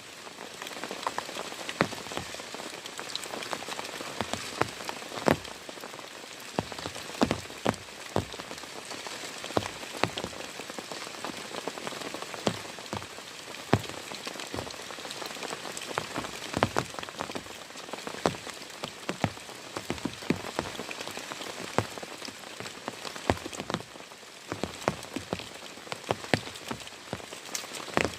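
Heavy rain falling steadily, with large drops landing as irregular loud taps over the continuous hiss of the downpour.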